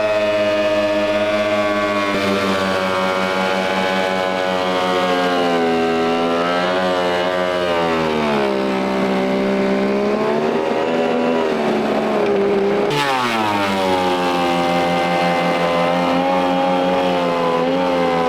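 Electric thickness planer with fresh blades planing thick rough-sawn boards. Its high motor whine drops in pitch and stays low as a board feeds through under load, then jumps back up about thirteen seconds in when the board clears, before dropping again under the next pass.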